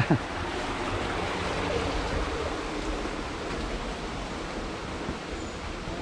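Steady rush of running water from a small cascade.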